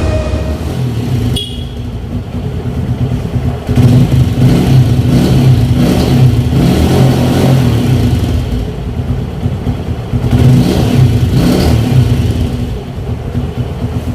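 TVS Radeon 110cc single-cylinder motorcycle engine running on a freshly replaced timing chain, revved up with the throttle about four seconds in and again around ten to twelve seconds, then dropping back.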